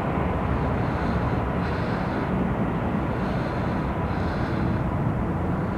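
Two taxiing F-35A Lightning II jets, their Pratt & Whitney F135 engines running at taxi power: a steady, even engine noise with a faint whine.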